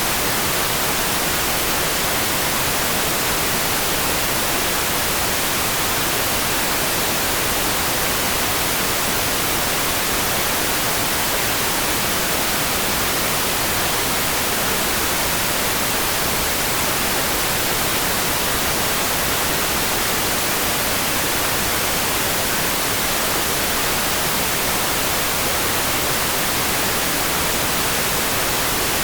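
Steady rain sound: an even, unbroken hiss with no separate drops, thunder or other events, very close to white noise.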